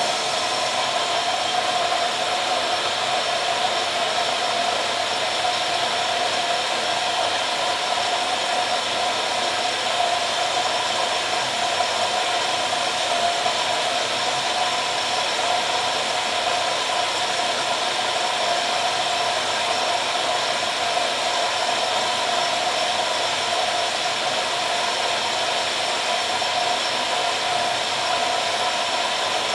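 AEG Lavamat 86760 front-loading washing machine taking in water: a steady rushing hiss of water through the inlet valve, with a faint steady whine in it. It starts suddenly as the valve opens while the drum stands still.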